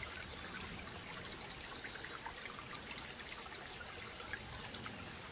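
Soft, steady trickle of running water, like a small babbling stream, with a fine, even splashing texture.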